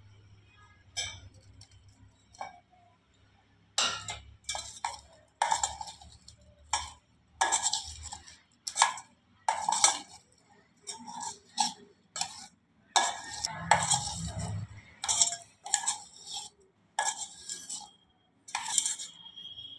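Metal spoon stirring and scraping around a stainless steel bowl in irregular strokes, mixing paneer cubes into a thick spice marinade.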